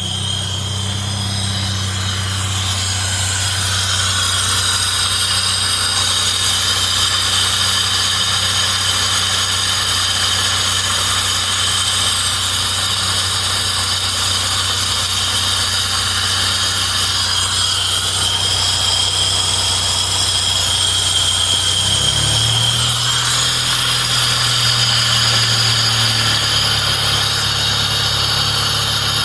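Vehicle engine idling with a steady high-pitched whine running above it, the kind of noise the owner asks about as a possible bad fuel pump. The engine note rises slightly about 22 s in and settles again a few seconds later.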